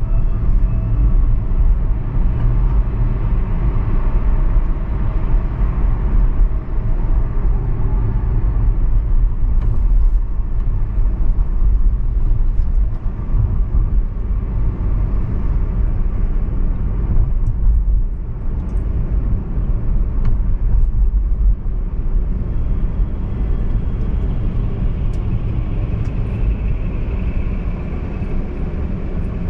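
Car driving through city streets: a steady low rumble of engine and road noise, with a few faint clicks.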